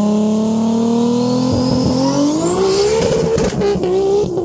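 A high-powered car engine at full throttle, its pitch climbing steadily as the car accelerates hard, with a high whine rising alongside it midway. The engine note drops back near the end.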